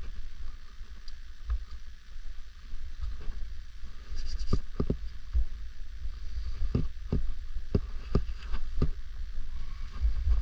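Wind buffeting a GoPro Hero 9's microphone as a steady low rumble, under scattered knocks and clinks of a climber and their gear on the rock. The knocks come thickest from about four seconds in.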